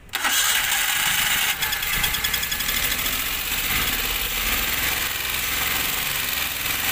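Maruti Alto 800's three-cylinder petrol engine starting right at the beginning and running steadily with the connectors for cylinders 1 and 2 unplugged, so it runs on cylinder 3 alone. The engine has a persistent misfire that the mechanic thinks could come from valve trouble in the head of cylinders 1 and 2.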